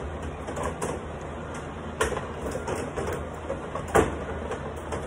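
Carrom bubble hockey table in play: the puck and plastic players clatter under the dome, with many light clicks and rattles from the rods. Two sharper knocks come about two and four seconds in, the second the loudest.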